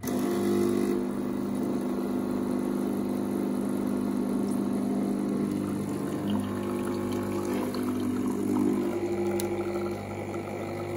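Home espresso machine's pump humming steadily as it pushes hot water through the ground coffee, with the coffee streaming from the portafilter into a mug. The hum starts suddenly.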